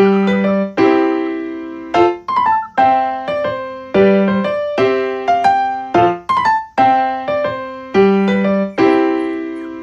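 Background music: a piano playing a gentle repeating phrase of struck notes that ring and fade, a new chord or note about every second.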